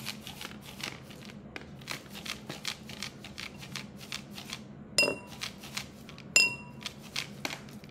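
Household objects played as improvised percussion: a rapid run of dry rattling clicks, several a second, and twice (about five and six and a half seconds in) a sharp, bright clink that rings on briefly.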